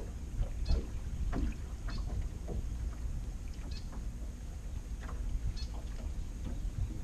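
Small waves lapping against the side of a boat's hull over a steady low wind rumble, with scattered light knocks and ticks.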